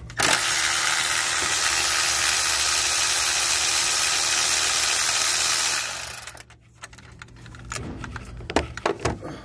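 A power tool runs steadily for about five and a half seconds, then stops, spinning out a transmission control module mounting bolt. Light clicks and knocks from handling the parts follow.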